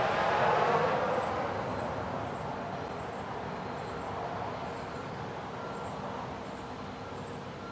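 Front-loading garbage truck driving away, its engine and road noise loudest about half a second in and then fading steadily.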